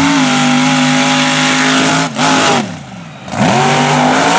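Mega truck engine revving hard and held at high revs, then letting off about two-thirds of the way through before the revs climb back up and hold high again as the truck runs the course.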